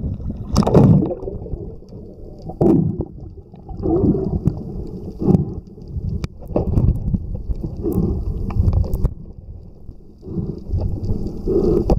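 Sea water gurgling and sloshing around a camera held under the surface, muffled, in irregular surges every second or two, with a few sharp clicks.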